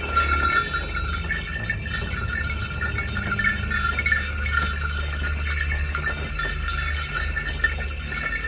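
Many small bells, strung across a path as a warning alarm, jingling and ringing on and on, over a low steady rumble.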